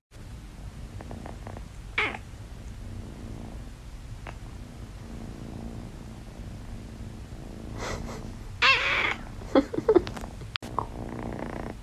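Domestic cat purring steadily, close up, while it nuzzles and mouths a person's cheek. There is a short sharp sound about two seconds in, and a few louder pitched sounds come near the end.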